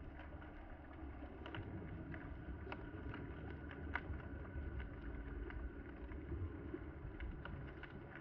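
Underwater ambience heard through a submerged camera: a low rumble with scattered sharp clicks and crackles.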